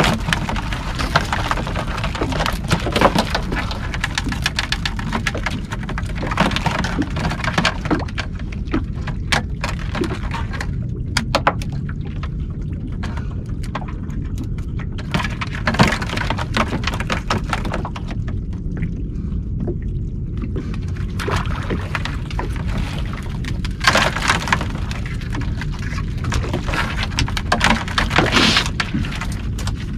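Irregular clicks, scrapes and clatters of crabs and crabbing gear being handled on a boat deck, over a steady low rumble. The loudest knocks come about three seconds in, around halfway, and twice near the end.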